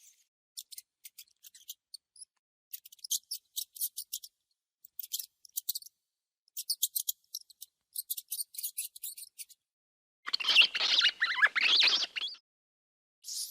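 Mouse squeaking: clusters of rapid, very high-pitched chirps and clicks with silent gaps between them, then a louder, longer run of squealing about ten seconds in.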